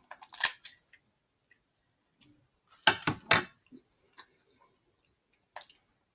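Snow crab claw shell being cut with kitchen scissors and broken apart by hand: scattered sharp cracking clicks, the loudest two close together about three seconds in.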